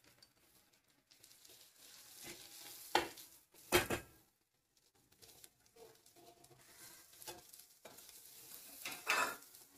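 Moong dal sizzling in the hot spiced oil tempering while a spoon stirs it, scraping and knocking against the pressure cooker. The strongest knocks come about three and four seconds in and again near the end.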